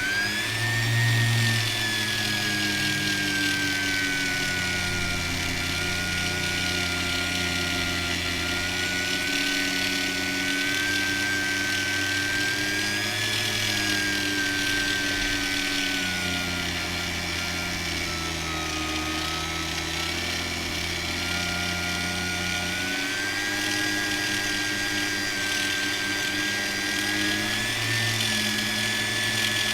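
Small handheld power tool running steadily, buffing an AirPods Pro case with polishing compound; its high whine drifts slowly down and back up in pitch.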